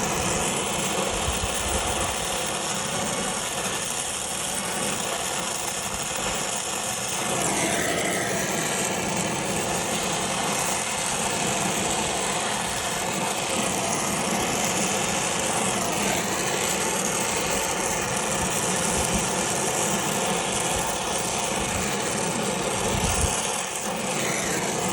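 Brazing torch flame hissing steadily as a line joint on a replacement AC compressor is heated and brazed with silver solder.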